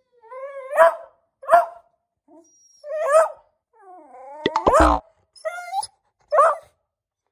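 Beagle barking and whining upward, about six short yelping calls that rise in pitch. The loudest call comes about halfway through, with a low thump under it.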